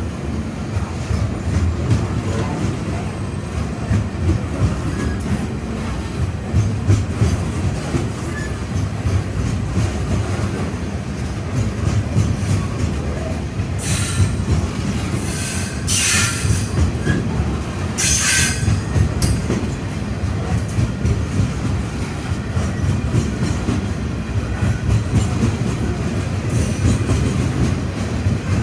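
Long freight train of hopper wagons rolling past at close range: a steady rumble of wheels on rail, with a few brief high-pitched wheel squeals around the middle.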